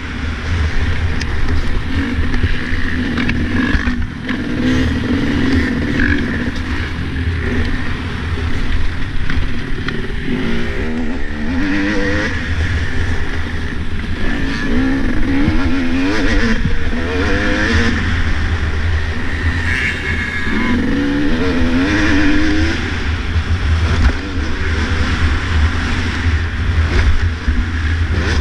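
Dirt bike engine revving up and falling back again and again as the rider accelerates and shifts around the motocross track, with heavy wind rumble on the helmet-mounted camera.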